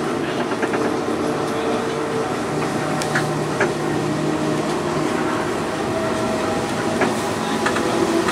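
Heritage Blauwe Tram motor car A 327 running along the track, heard from its front cab: a steady hum from its motors over the rumble of the wheels, with a few sharp clicks as the wheels pass rail joints.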